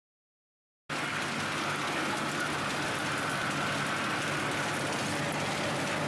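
Vibrating conveyor of a Skorpion 350EB wood-chipper line running, a steady rattling hiss of wood chips shaking along the metal pan over a low machine hum. It starts suddenly about a second in.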